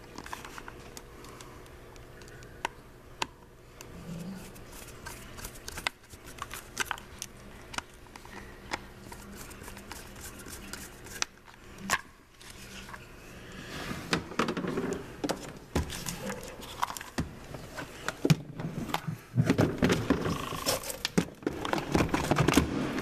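Hand-handling noise on a plastic 24 V ride-on toy battery. First come scattered small clicks as the fuse-cover screw is turned back in by hand. About two-thirds of the way in come louder rubbing, scraping and knocks as the battery is worked back into the toy's plastic battery compartment.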